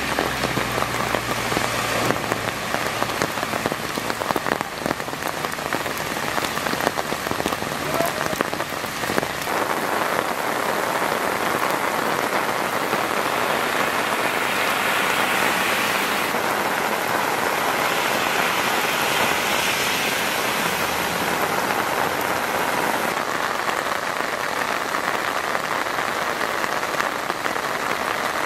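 Torrential rain pouring onto flooded pavement and standing water, a downpour of close to two inches an hour, making a dense, steady hiss. For roughly the first ten seconds it is dotted with sharp spatters of drops close by, then it settles into a smoother rush.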